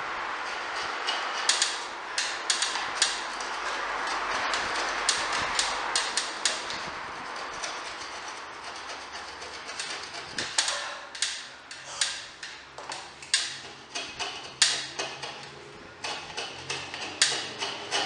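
Hand tool working on the wooden head of a door frame: a rough scraping noise in the first half, with many irregular sharp knocks and clicks that come thicker in the second half.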